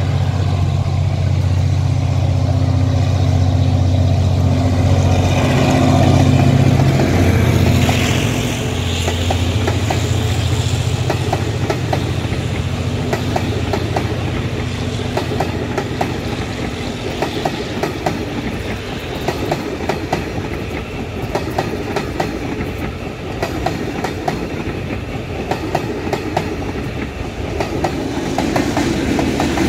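Taiwan Railway R-class diesel-electric locomotive passing with a steady low engine drone, which drops away about eight seconds in. A long run of wheel clicks over rail joints follows as the towed EMU900 electric multiple-unit cars roll by.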